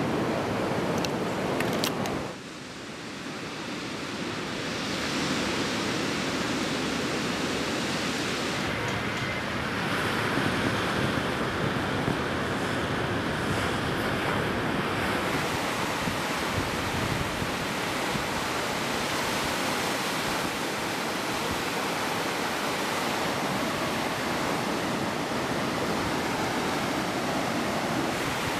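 Ocean waves breaking and washing in, a steady rushing surf noise. The level dips sharply about two seconds in, then builds back up.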